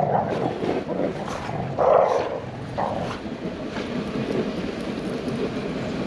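A dog vocalizing a few short times, the loudest about two seconds in, over a steady rustling background.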